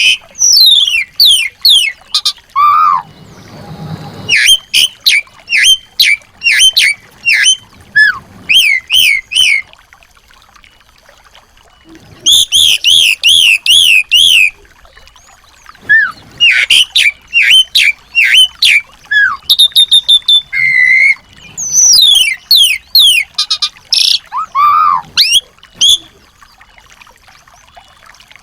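Small songbirds singing: rapid series of high, down-slurred chirps and chattering trills in bursts of a few seconds, broken by pauses of one to two seconds.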